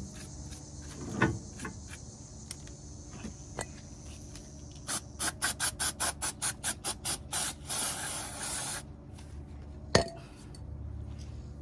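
Steel wire brush scrubbing brake dust off a brake part in quick back-and-forth strokes, about five a second, then a second of continuous scrubbing. A single sharp knock follows near the end.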